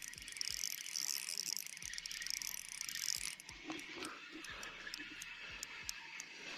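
Fishing reel being cranked to bring in a hooked trout: an even ticking of the reel's mechanism, about two to three clicks a second, with a high hiss during the first half.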